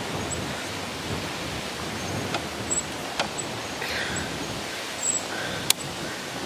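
Steady rushing of wind over the microphone while riding a bicycle, with three sharp clicks about two and a half, three and six seconds in.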